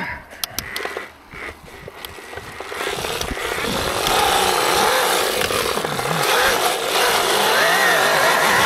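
Electric dirt bike riding a trail: a few sharp clicks and knocks, then from about three seconds in a rising rush of noise with a wavering whine as the bike picks up speed.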